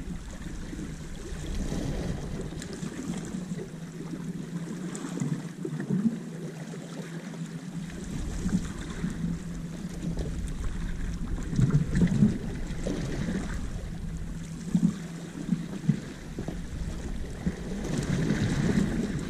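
Wind buffeting the microphone, gusting and easing, with small waves washing against the rocks at the water's edge and a few short louder splashes or knocks.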